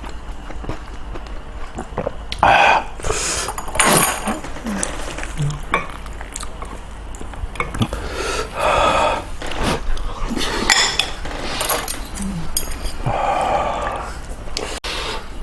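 Spoon and dishes clinking and scraping during eating, with scattered small clicks and several louder bursts about a second long.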